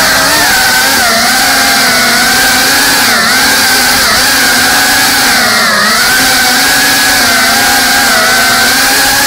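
GEPRC CineLog35 FPV cinewhoop's brushless motors and ducted propellers whining steadily, the pitch wavering up and down with throttle and dipping briefly twice, about three and six seconds in.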